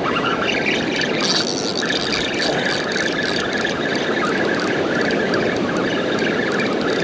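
Surf breaking on the beach and wind buffeting the microphone, a loud, steady rushing noise.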